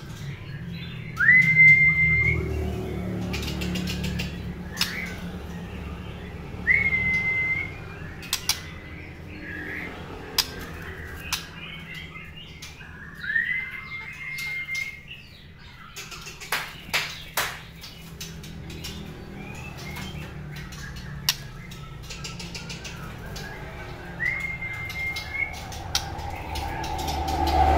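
Caged white-rumped shama giving several long whistles that sweep up and then hold a steady note. Between them come sharp clicks and flutters of its wings on the perch, with a few loud clicks around the middle.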